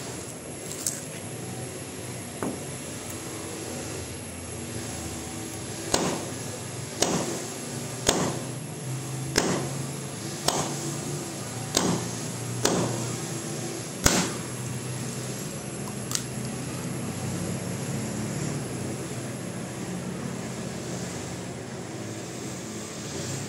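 A husked coconut knocked hard against a stone grinding roller, about eight sharp knocks roughly a second apart, the last and loudest one splitting the shell open. Fainter taps come before and one after, over a steady low hum.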